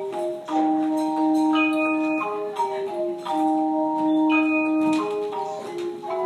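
Tone chimes (handheld chime bars) playing a melody: each note is struck and left ringing, with successive notes overlapping into soft chords.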